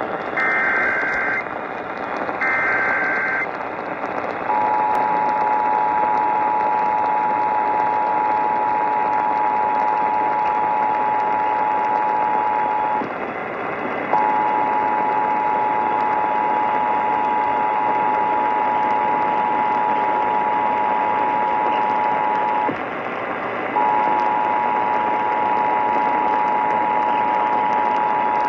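Emergency Alert System activation received on AM radio. Two rasping digital data bursts of about a second each (the end of the SAME header) are followed by the two-tone attention signal: a steady, harsh dual-pitched tone broken by two short gaps, over constant radio hiss. This is the start of an AMBER Alert (child abduction emergency) broadcast.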